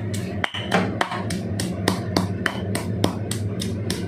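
Stone pestle pounding sliced lemongrass, ginger, shallots, garlic and chili in a stone mortar, a steady beat of about three strikes a second, crushing the aromatics into a paste.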